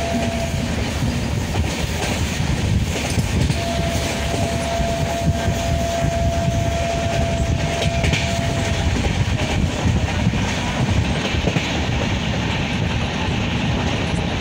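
Passenger train running at speed, heard from inside the coach by an open window: a steady rumble of wheels on the rails with clickety-clack. A long, steady high note sounds for about five seconds, starting a few seconds in.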